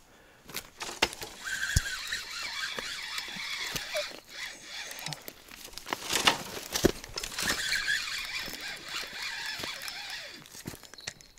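Spinning fishing reel whirring in two long runs while a hooked fish is being played, with handling knocks and clicks in between.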